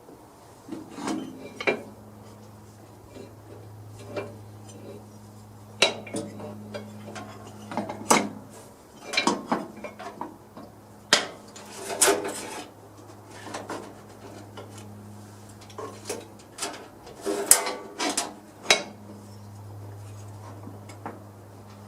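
Metal parts and hand tools clinking and clanking in irregular knocks and rattles during lawn tractor reassembly, over a steady low hum.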